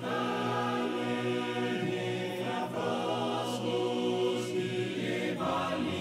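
Background music of a choir singing slow, held chords.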